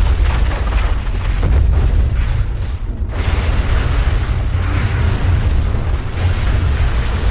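Collapse sound effect: a deep, heavy rumble with dense crashing and crumbling debris noise over it, the crumbling thinning briefly about three seconds in.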